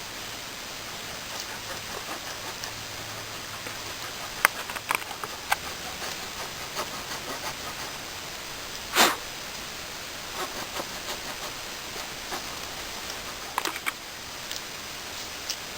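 Glass being knapped with a Swiss Army Knife: scattered sharp clicks and snaps as flakes break off, the loudest about nine seconds in, over a steady background hiss.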